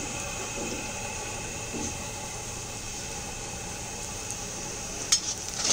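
Sliced onions frying in hot oil in a large iron kadhai, a steady sizzle, at the stage of being taken to a light red. Near the end a perforated steel skimmer starts knocking and scraping against the pan.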